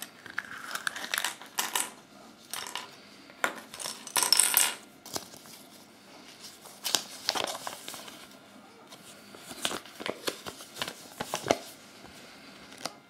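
Yellow plastic Kinder Surprise capsule being opened and handled, with many sharp plastic clicks and rattles, and paper rustling as the folded instruction leaflet is taken out and opened, a longer rustle about four seconds in.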